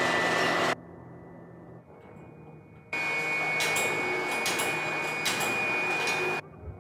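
Factory machinery running with a loud steady hiss and a thin high whine, in two stretches that each stop abruptly: one ends just under a second in, the other runs from about three seconds to near the end. A quieter low hum fills the gap between them.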